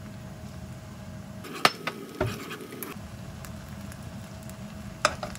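Gochujang sauce simmering in a pan with a steady low bubbling. Three sharp clinks of a metal spoon and a glass bottle against the pan come at about one and a half seconds, two seconds and five seconds in.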